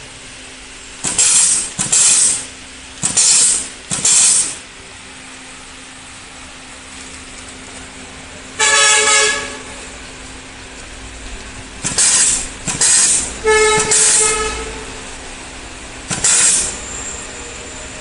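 Pneumatic wire-stripping and terminal-crimping machine cycling: about ten short, sudden hisses of air, mostly in pairs, two of them with a whistling tone, over a steady low hum.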